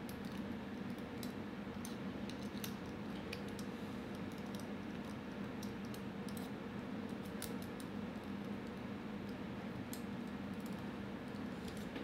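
Scattered small metallic clicks and taps of an Allen key and the metal regulator body being handled as the fill-assembly screws are tightened, over a steady low hum.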